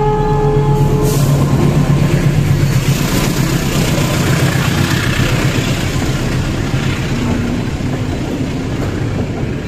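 KAI CC 206 diesel-electric locomotive passing close by at the head of a train. Its multi-tone horn cuts off about a second in. The locomotive's low, steady engine drone then eases off slowly under the rushing rumble of the coaches rolling past on the rails.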